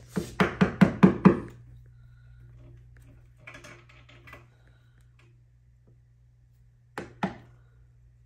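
A claw hammer tapping a plug into a drilled hole in a concrete wall. A quick run of about seven knocks comes in the first second and a half, getting louder, then two more knocks about seven seconds in.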